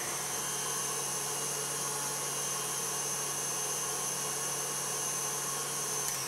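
Electric stand mixer running steadily, whisking cream and sugar into whipped cream. Its motor hum winds down with a falling whine right at the end.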